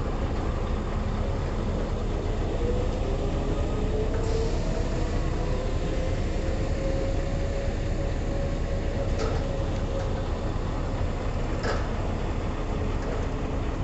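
A steady low engine rumble, with a faint tone that slowly rises over a few seconds and then holds. Two sharp clicks come near the end.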